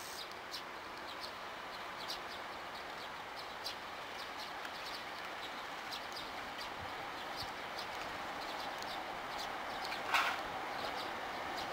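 Small birds chirping, a short high chirp every second or so, over the faint, slowly growing rumble of an approaching Hankyu 3300 series electric train. A brief, louder sharp sound stands out about ten seconds in.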